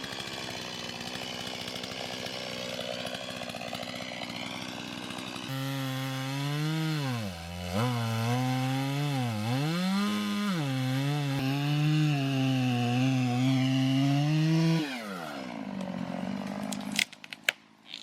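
Chainsaw cutting into a walnut tree. It runs steadily, then goes to full throttle about five and a half seconds in, its pitch sagging twice as it bogs in the cut. It drops back to idle near the end, followed by a few sharp cracks.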